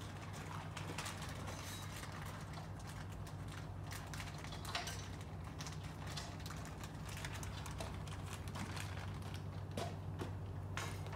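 Scattered light clicks and taps from hand work on an aluminium sliding-door frame, over a steady low hum.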